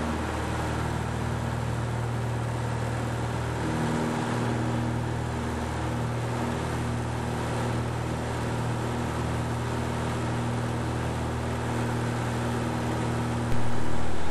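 1961 Cessna 172B's six-cylinder Continental O-300 engine and propeller droning steadily at full takeoff power, heard inside the cockpit. It gets suddenly louder near the end.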